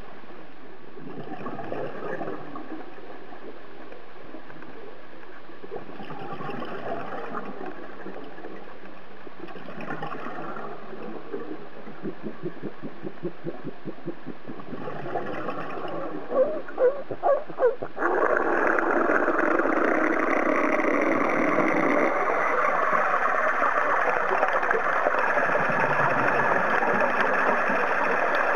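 Underwater sound of a scuba diver breathing through a regulator, with bursts of exhaled bubbles swelling every few seconds. A few loud knocks come in quick succession, then a louder steady churning noise starts abruptly about two-thirds through.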